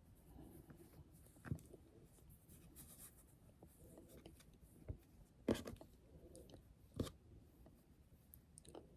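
Faint rustling and a few light taps of craft materials being handled while petals are shaped and glued, with four short clicks spread through the stretch.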